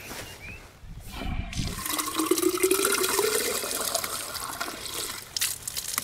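Water running from a campsite standpipe tap into a 750 ml plastic Super Sparrow water bottle, starting about a second and a half in. A rising tone shows the bottle filling.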